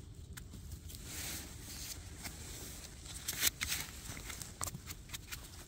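Handling noise from gloved hands cleaning porcini mushrooms and laying them among twigs and moss: scattered small clicks and crackles with brief rustles, the loudest about three and a half seconds in.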